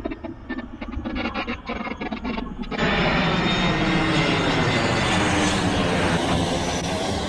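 Twin-engine jet airliner passing low overhead on landing approach: loud engine noise with slowly sweeping tones. It jumps sharply louder about three seconds in; before that it is fainter, with many short crackles.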